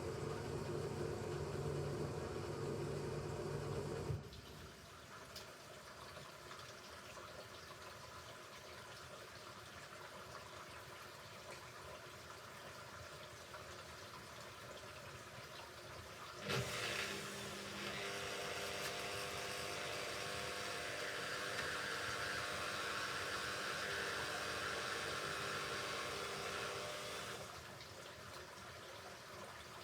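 Hoover Ecologic Computer Washer 1300 in its rinse cycle: a steady motor hum cuts off about four seconds in. After a quieter pause, a click about halfway through starts water rushing into the machine, which stops near the end.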